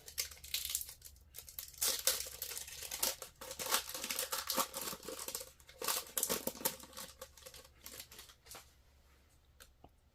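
Trading card pack wrapper crinkling and tearing as it is handled and opened, a dense run of irregular crackles that dies down about eight and a half seconds in.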